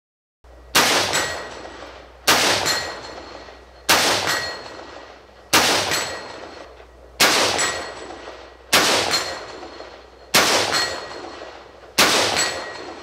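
Sharps Bros. Livewire AR-15 chambered in 224 Valkyrie fired semi-automatically from the bench: eight shots about a second and a half apart, each a sharp crack with a long echoing tail. A faint ringing tone follows each shot.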